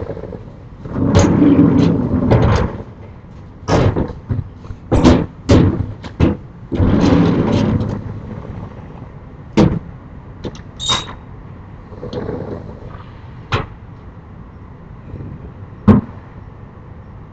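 Sliding storm shutters (amado) being run along their tracks and shut: two rumbling, scraping slides of a second or more, then a series of sharp bangs and knocks as the panels hit home, with a brief high squeak about halfway through.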